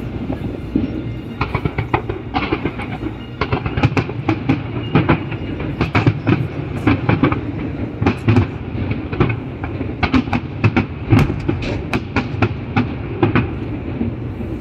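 Aerial fireworks going off in quick, irregular succession: a dense string of sharp bangs and crackles, several a second, over a steady low background noise.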